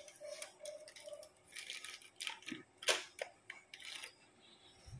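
Quiet, scattered light clicks and rustles of hands handling a small object as an engagement ring is taken out.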